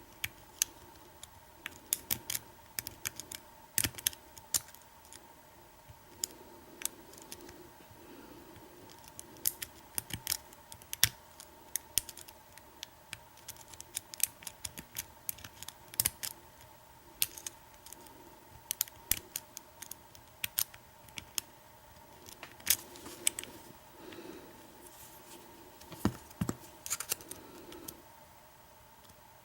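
A lock pick and tension wrench working in the keyway of an American 1100 padlock during single pin picking: irregular small metallic clicks and taps as pins are lifted and set.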